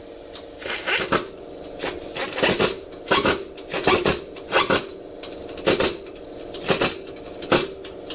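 Pneumatic wrench fired in a dozen or so short bursts, spinning and clattering nuts onto a car's rear wheel hub while a wheel spacer is fitted.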